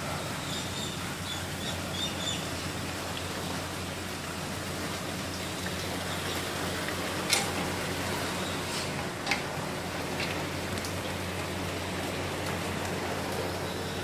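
Heavy rain pouring down steadily, with a few sharp taps of drops or drips hitting something hard around seven to ten seconds in.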